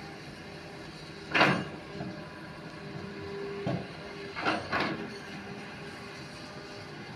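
Hitachi hydraulic excavator running with a steady engine hum. A loud short burst of noise comes about a second and a half in, and two more come close together around four and a half seconds.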